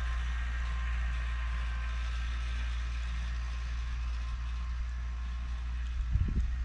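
Four-wheeler's engine running at a steady low drone, with wind gusting on the microphone near the end.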